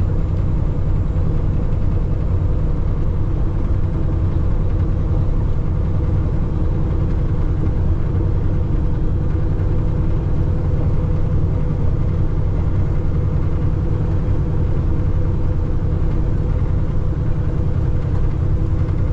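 Peterbilt semi truck's diesel engine and road noise heard from inside the cab, a steady low drone while cruising at a constant speed.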